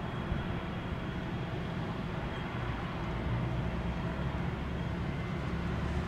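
Steady low rumble of vehicles, with no distinct events, growing a little stronger about halfway through.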